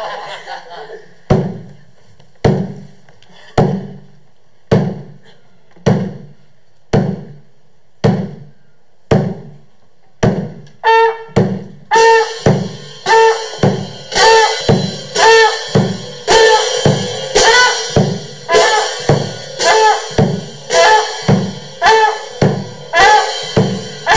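Hand-struck frame drum beating a slow, steady pulse, about one stroke a second. About halfway through the beat quickens to nearly two a second, and each stroke is brighter, with a higher pitched sound that rises and falls.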